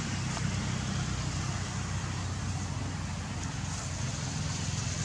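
A motor running steadily: a low, even hum under a constant hiss.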